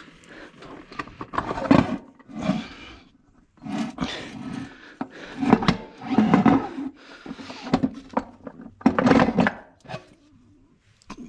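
Heavy internal parts of a 4L80E automatic transmission being worked and pulled out of the case by hand: a series of irregular metal scraping and knocking sounds, each lasting about half a second to a second, with short pauses between them.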